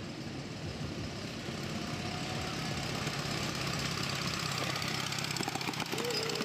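Miniature railway train approaching and passing: a steady running rumble that grows slowly louder, with a quick run of clicks from the wheels near the end as the locomotive draws level.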